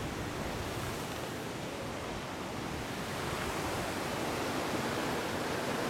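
Ocean surf washing over a rocky shoreline, a steady rush of waves that swells slightly in the second half.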